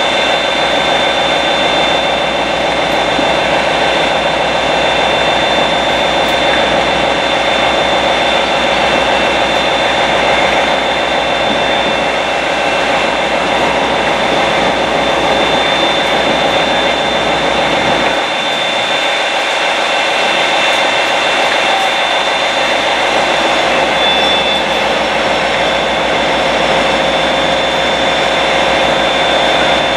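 Diesel locomotive-hauled passenger train pulling out: a loud, steady engine drone with a steady whine on top. The deep rumble drops away a little over halfway through while the whine carries on.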